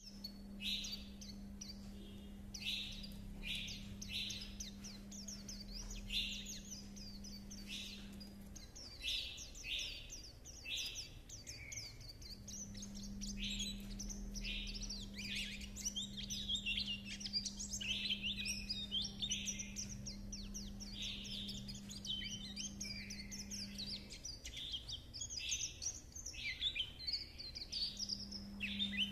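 Caged white-eye singing its chattering 'líu' song: rapid runs of thin, high twittering notes, one run after another with short breaks.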